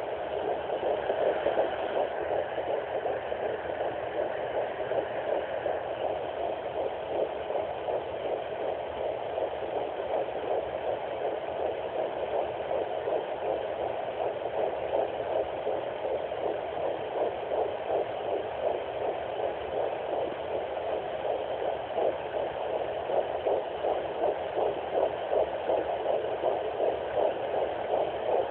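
Sonoline B fetal doppler picking up an 11-week fetus's heartbeat: a fast, regular pulse over a steady noise from the probe, growing more distinct in the second half.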